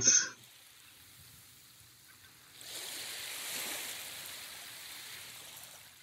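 Surf washing up on a beach: a hiss of breaking water swells up about two and a half seconds in, then slowly fades.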